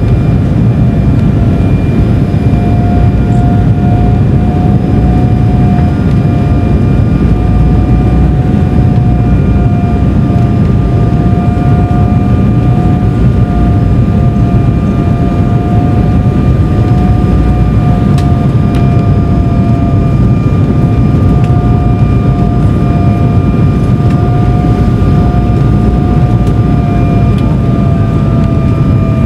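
Jet airliner cabin noise on final approach: a loud, steady rumble of engines and airflow heard from a seat over the wing, with a steady, slightly wavering whine running through it.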